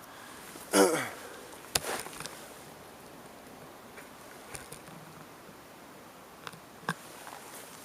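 .22 air rifle being fired at a can: a loud short shot with a falling twang about a second in, then a sharp click and a few light knocks, with faint ticks later.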